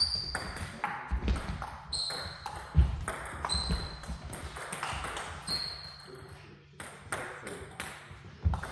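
Table tennis rallies at two tables: the plastic ball clicking off bats and bouncing on the tabletops in quick, irregular knocks, some with a short high ping. A low thud, most likely a player's foot on the hall floor, comes just under three seconds in and is the loudest sound.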